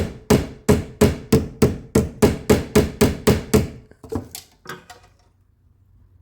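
A hammer beats a bent metal door-latch arm straight with a rapid, even series of about a dozen sharp blows, some three a second, each with a ringing metallic note. A few lighter taps follow, and the hammering stops about five seconds in.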